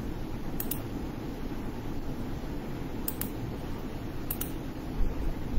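Steady room noise and hiss during a pause in speech, with a few faint clicks and a soft low bump near the end.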